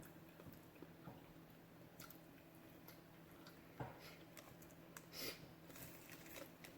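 Faint chewing and mouth sounds of someone eating grilled chicken, a scatter of soft wet clicks with a slightly louder bite or two about four and five seconds in, over near silence.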